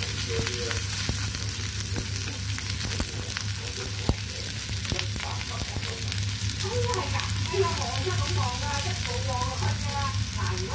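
Sliced shallots and garlic sizzling steadily in hot oil in a nonstick wok, with the clicks and scrapes of wooden utensils stirring them. A sharp knock comes about four seconds in, over a steady low hum.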